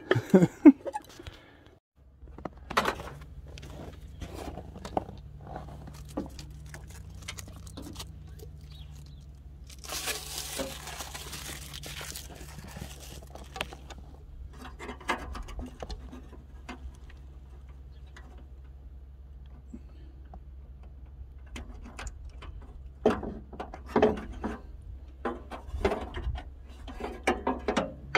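Scattered light clicks and knocks of hands fitting an LED headlight unit into the front of a Chevrolet S10 pickup, over a steady low hum. A brief rushing noise comes about ten seconds in, and the knocks come more often near the end.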